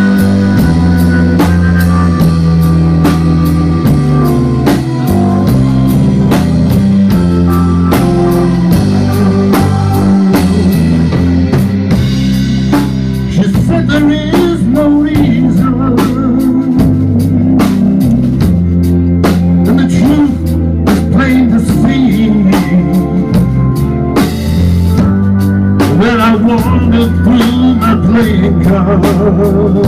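Live electric guitar, electric bass and drum kit playing a rock-blues groove. About halfway through, the guitar takes a lead line with bent, wavering notes over steady bass notes and busy drumming.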